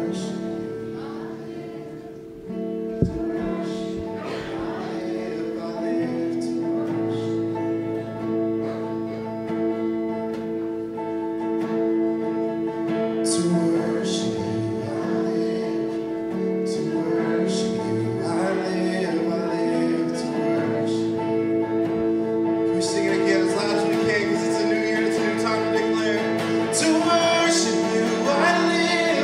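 Worship song: voices singing over guitar and steady held chords, with one sharp knock about three seconds in.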